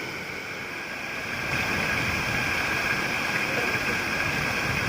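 Waterfall rushing steadily, a little louder from about a second and a half in.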